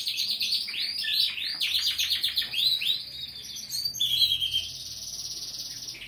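Domestic canary song: a run of quick down-slurred whistled notes, then from about four seconds in a fast, even rolling trill held at one pitch.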